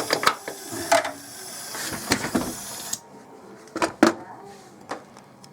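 Hiss of a brazing torch flame on refrigerator pipework, shut off suddenly about three seconds in. A few sharp metallic clicks and taps follow.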